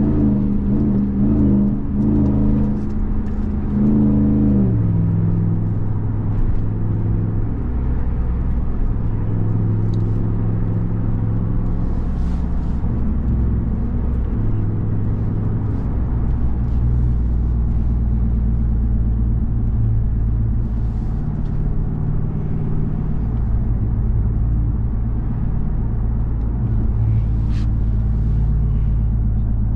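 2021 Ram 1500 TRX's supercharged 6.2-litre Hemi V8 running under way at higher revs, its pitch dropping sharply about five seconds in, then running steadily at lower revs.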